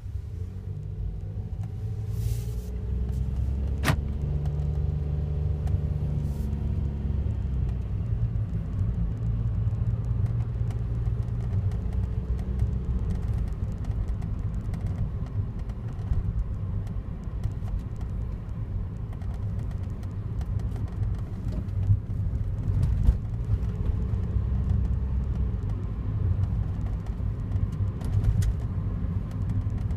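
Daihatsu Wake kei car running, a steady low engine and road rumble whose pitch shifts in the first several seconds, with one sharp click about four seconds in.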